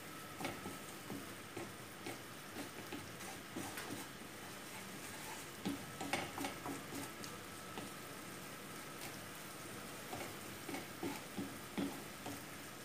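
Wooden spatula stirring and scraping tomato sauce in a frying pan, with a soft steady sizzle under irregular taps and scrapes that come thickest about six seconds in and again near the end.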